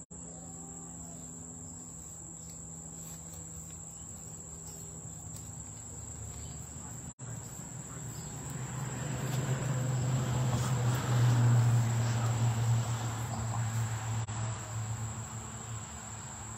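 Insects trilling steadily outdoors in a single high, unbroken tone. About halfway through, a low hum swells up, becomes the loudest sound for several seconds, then fades away.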